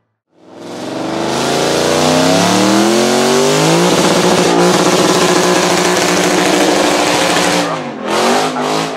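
Lexus coupé doing a burnout: the engine revs up over about three seconds, then is held at high revs for a few seconds over the hiss of the spinning rear tyres, and the revs drop and rise unevenly near the end.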